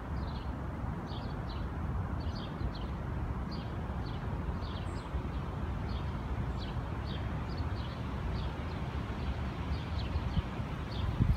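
Canada goose goslings peeping: short, high, downward-sliding peeps, two or three a second, over a steady low rumble.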